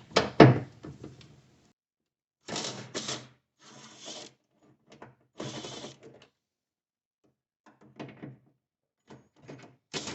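Ratchet wrench clicking in short bursts as the trunk latch's two 10 mm bolts are backed out, with a couple of sharp metal knocks near the start.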